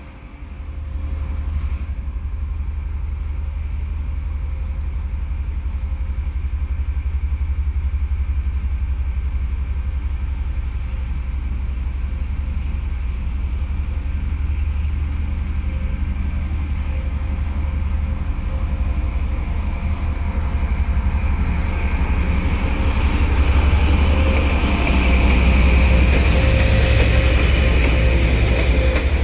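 TEP70BS diesel locomotive's engine working hard as it pulls a train away, a heavy low rumble that grows steadily louder as it approaches. Near the end it passes close and the hauled ES1P Lastochka cars roll by, adding wheel and rail noise.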